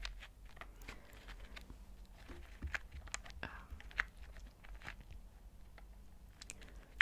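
Small alphabet stamps handled close to the microphone, giving irregular light clicks and taps, with a few sharper clicks.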